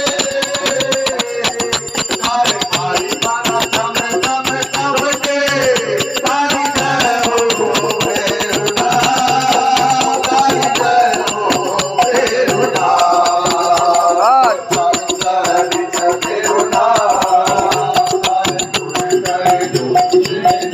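Devotional folk music from a bhajan group: a wavering melody line over dense, fast shaken and struck percussion.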